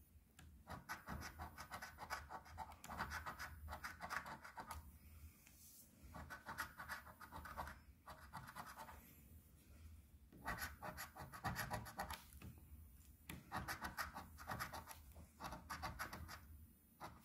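A coin scraping the scratch-off coating off a lottery ticket, in repeated bursts of quick rubbing strokes with short pauses between them as each spot is uncovered.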